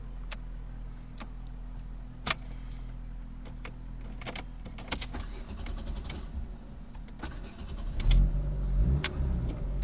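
Small LPG-fuelled car engine idling steadily, with scattered clicks and rattles, then running louder with a wavering pitch about eight seconds in as it is revved.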